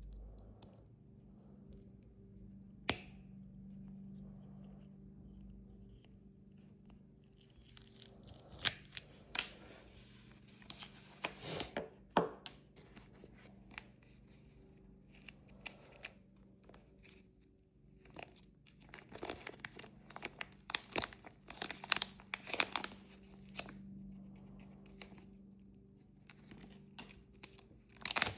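Intermittent scratchy, crinkling handling noises in two bursts of several seconds each, with a single sharp click about three seconds in, over a low steady hum.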